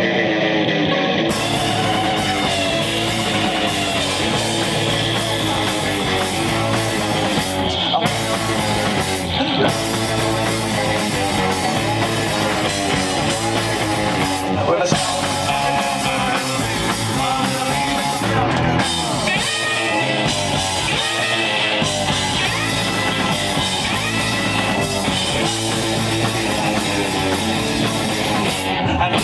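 Live rock band playing a song: electric guitars over a drum kit.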